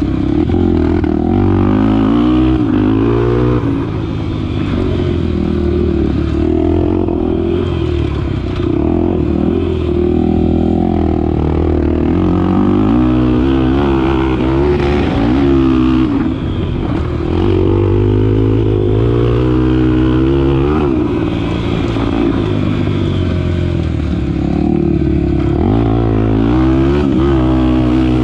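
Honda Tornado 250's single-cylinder four-stroke engine being ridden hard, revving up and falling back over and over as the throttle opens and closes and the gears change.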